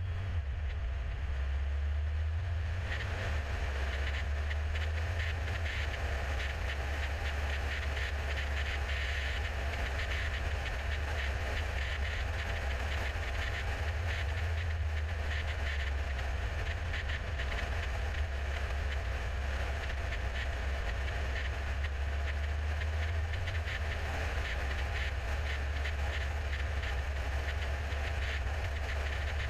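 Car driving at motorway speed: a steady deep rumble of tyres and engine with a lighter road hiss above it.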